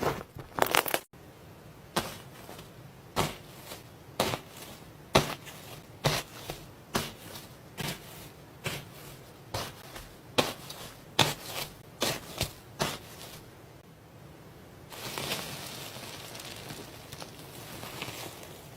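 Slime being squeezed and poked by hand, giving short crackling pops about once or twice a second. About three-quarters of the way through, this changes to a steadier crinkly hiss.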